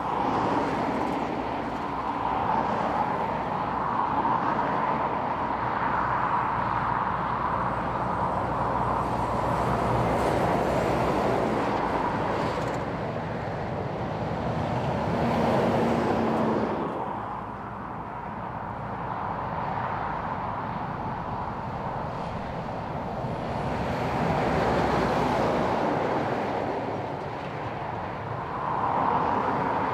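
Heavy diesel trucks passing one after another on a highway: engine drone and tyre noise swelling and fading as each rig goes by. A low engine note stands out briefly about 15 seconds in, and the sound changes abruptly soon after.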